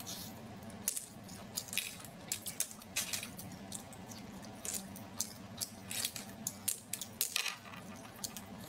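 Close-miked mouth sounds of a person eating cooked clams: many short, irregular wet smacks and sucks as the meat is pulled off the shells, over a faint steady hum.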